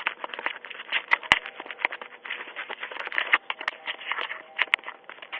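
Ring video doorbell being handled at close range: rapid, irregular scratching and tapping clicks on its microphone, with one sharper click about a second in.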